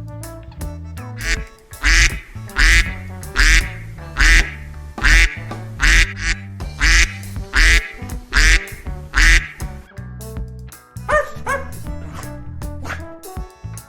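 A duck quacking over and over, about eleven loud quacks less than a second apart, over background music. Near the end come a few shorter, higher-pitched calls.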